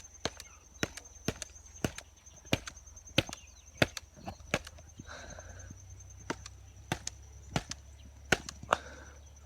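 A wooden stick whacking a hard-shelled fruit over and over to smash it open: about fifteen sharp knocks, irregularly spaced, roughly one or two a second, with a short lull just after the middle.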